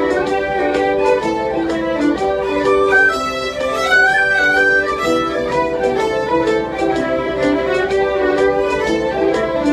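A group of fiddles playing a lively tune together in unison, with quick bowed notes.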